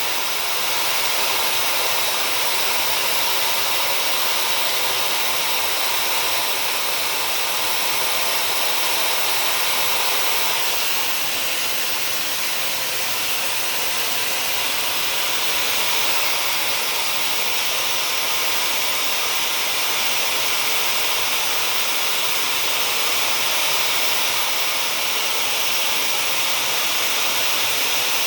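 Dyson hair dryer with a diffuser attachment blowing steadily, a continuous airy hiss, running with the heat off.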